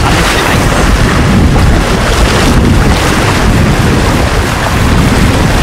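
Wind buffeting the microphone over the steady rush of river water running through shallows.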